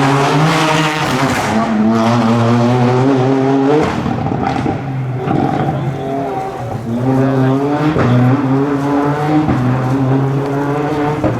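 Rally car engine revving hard under acceleration. The pitch climbs, drops sharply at gear changes about four and eight seconds in, then climbs again.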